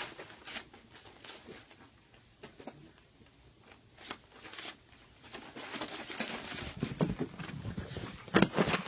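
Two pit bulls, a mother and her puppy, play-wrestling: scattered clicks and scuffles at first, getting busier and louder in the second half.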